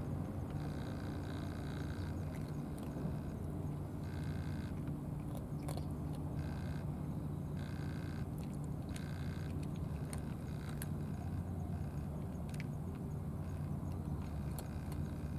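A cat eating from a plastic dish, its chewing heard as scattered faint clicks, over a steady low hum that is louder than the chewing.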